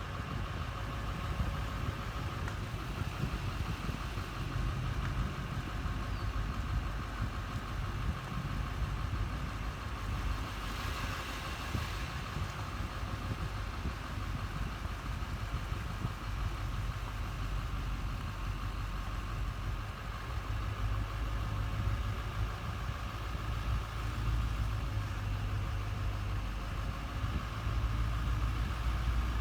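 A vehicle engine running steadily with a low rumble, with a brief hiss about ten seconds in.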